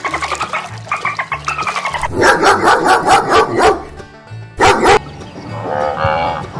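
Dog barking in a quick run of about ten barks, then one more loud bark, over background music with a steady bass line.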